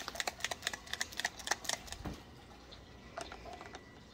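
Quick, irregular plastic clicking, several a second, of a trigger-sprayer bottle's trigger being squeezed over and over. A low thump comes about two seconds in, then a few more clicks.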